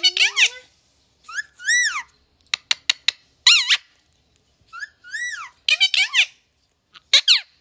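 Pet parrot giving a series of short whistled calls that sweep up and down in pitch, about seven bursts with brief gaps and a few sharp clicks around the middle.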